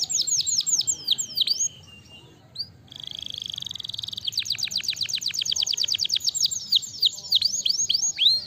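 Canary singing: a fast trill of high, downward-sweeping notes, breaking off briefly about two seconds in. A short buzzing roll follows, then a long rapid trill of about ten notes a second.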